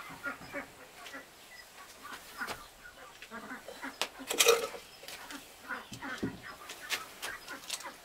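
Chickens clucking on and off, with light knocks and a louder clatter about halfway through as a metal wok is lifted and set down on a brick stove.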